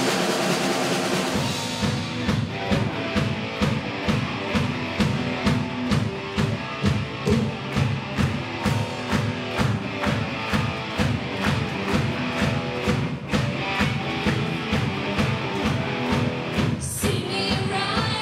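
Live rock band playing: electric guitars and bass over a steady driving drum beat. The first two seconds are a dense cymbal wash before the beat settles in, and near the end a bright high layer comes in over the band.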